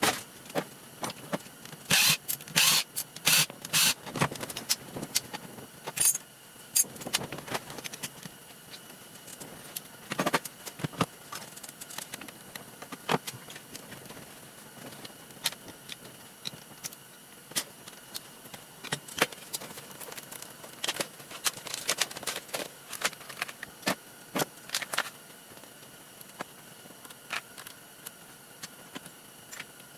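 Irregular clicks, clacks and light rattles of small plastic and metal parts and hand tools being handled as a Hart reciprocating saw is taken apart for scrap, with a dense cluster of clatter a few seconds in.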